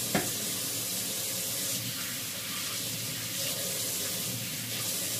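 Water running steadily from a kitchen tap into a stainless-steel sink, with one short sharp knock just after the start.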